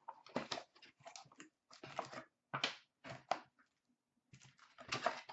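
White cardboard box being opened by hand: a string of short, irregular rustles and scrapes of cardboard as the lid and flaps are pulled open.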